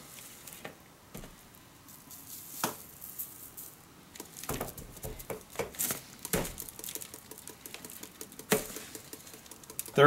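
Seasoning being shaken from a glass spice bottle over a tomahawk rib-eye and rubbed in by nitrile-gloved hands. The sound is a string of irregular light taps, rattles and rustles against the paper plate, with a few sharper clicks.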